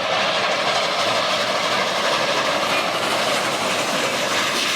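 Steady, even hiss of water spraying onto a muddy toy train locomotive as it is rinsed clean. It runs at an unchanging level with no rhythm.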